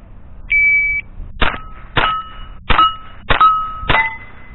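Shot-timer start beep, then five quick shots from a Thompson/Center rimfire rifle, each followed at once by the ring of a steel target being hit.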